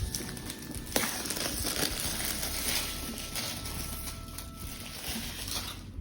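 Packaging being handled and unwrapped, a steady crinkling and rustling with a sharp click about a second in.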